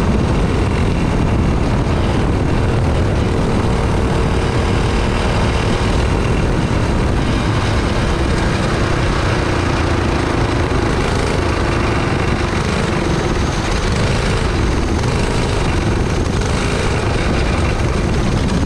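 Cage kart's small engine running hard at racing speed, picked up by a camera mounted on the kart, under a steady rush of wind and road noise; the engine's pitch dips and rises a little through the corners.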